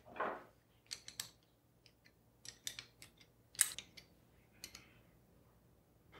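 A small open-end wrench clinking on the steel mounting bolts of a stepper motor and vent valve as they are turned, a loose scatter of short metallic clicks with pauses between.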